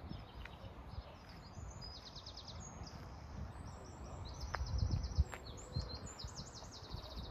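Songbirds singing in quick trilled phrases, over the crunch of footsteps on gravel that are loudest about five seconds in.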